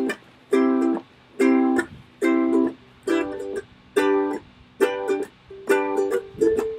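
Background music: a ukulele strumming short chords in a steady rhythm, a little more than one strum per second, with brief gaps between.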